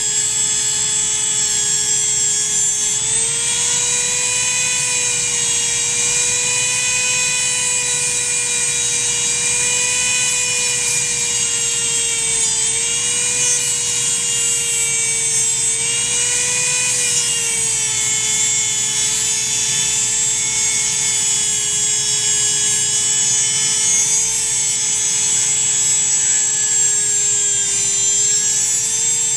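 Dremel rotary tool running steadily at high speed, grinding a wooden pencil to a point; a high, even whine over a grinding hiss, the pitch rising slightly a few seconds in and wavering a little after.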